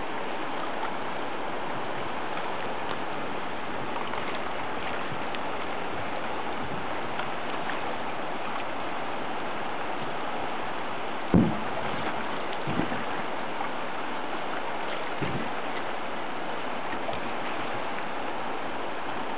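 Steady rushing of fast-flowing river water around a drifting boat, with a few brief low thumps about halfway through.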